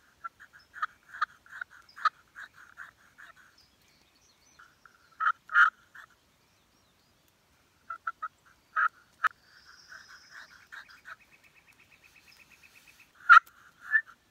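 Friction turkey pot call worked with a striker, sending out several runs of short yelps, about three to four a second, with pauses between the runs and a few sharp clicks among them.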